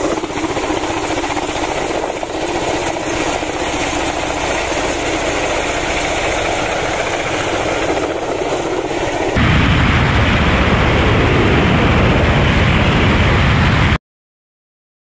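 Kamov Ka-52 attack helicopter flying low past, its twin turboshaft engines and coaxial rotors making a steady rotor noise. About nine seconds in the sound changes to a louder, deeper rumble of the helicopter heard on board, which cuts off suddenly near the end.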